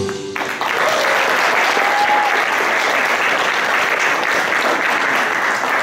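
Audience applauding, beginning as the backing music cuts off at the start and continuing steadily.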